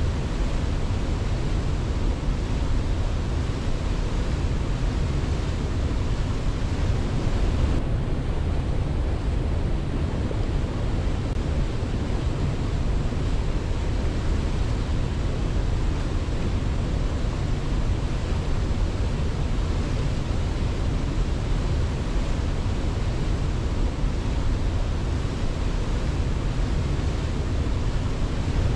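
Steady, unbroken rushing of falling water, heaviest in the low end, with no birdsong or other events.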